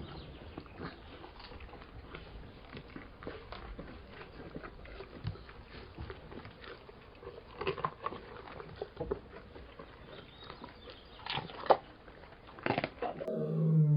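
Lion feeding and moving about: scattered crunching, chewing and small clicks, with a few louder crunches in the second half. Just before the end a lion begins a low roar.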